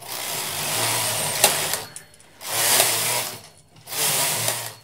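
Carriage of a Brother 950i knitting machine, weaving brushes fitted, sliding across the needle bed and knitting three rows back and forth: a rasping, whirring run of the carriage over the needles for each row, the first pass longer, with a sharp click about one and a half seconds in.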